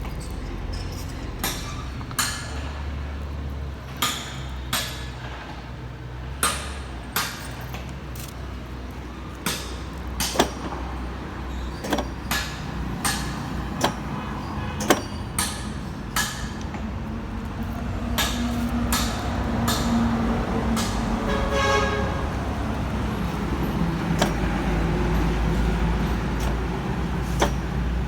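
Okuma radial arm drill running: a steady low machine hum with many sharp clicks and knocks, then growing louder with a humming tone about two-thirds of the way through.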